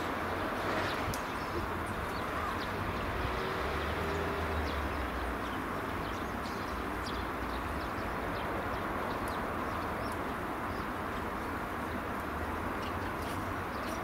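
Outdoor background: a steady low rumble and hiss, with many short high bird chirps scattered through it.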